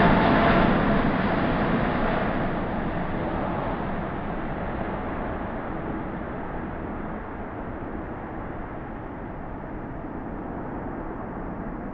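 Etihad Boeing 777's twin GE90 jet engines climbing away after takeoff. The steady jet noise fades and turns duller as the aircraft draws away.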